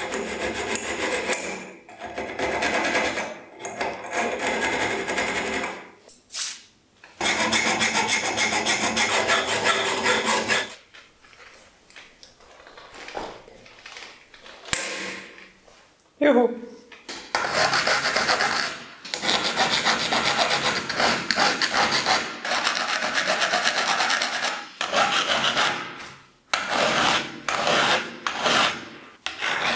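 A flat file drawn in repeated strokes across the edge of a steel card scraper, jointing the edge straight and then shaping a rounded scraper's curve. The rasping strokes come in runs, with a pause of a few seconds near the middle.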